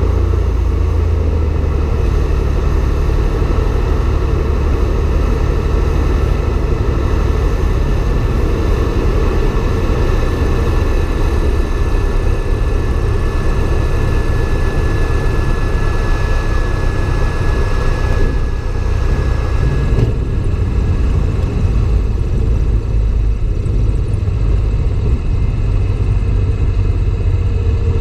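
Light single-engine propeller airplane's piston engine running at idle, with steady rushing airflow, through touchdown and the landing rollout.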